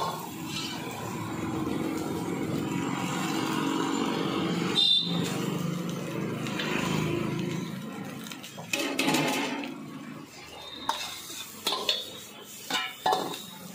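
Stir-frying in a large iron wok: food sizzling steadily while a long-handled steel ladle scrapes and clanks against the wok, with a run of sharp clanks in the second half.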